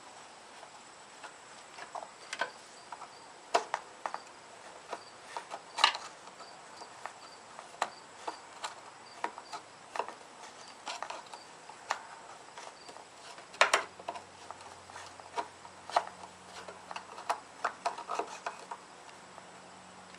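Scattered small clicks and taps of a screwdriver and metal parts as the single screw at the top of a mower carburetor is driven back in, with two louder knocks. A faint low hum comes in about two-thirds of the way through.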